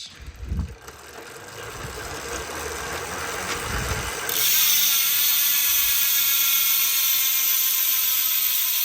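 Zipp 303S rear wheel's freewheel hub. The wheel is spun up, then from about four seconds in the hub gives a loud, steady high-pitched buzz as it coasts, its ratchet clicking too fast to count.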